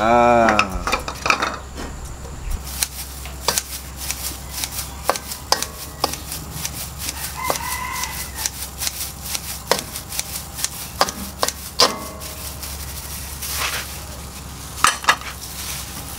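Tongs clicking and scraping against a wok as stir-fried rice vermicelli is tossed, a steady run of sharp clicks. A rooster crows at the start.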